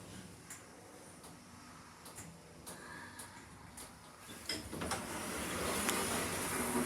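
Passenger lift's sliding doors moving: a few light clicks, then from about four and a half seconds in a rising, steady rush of mechanical noise.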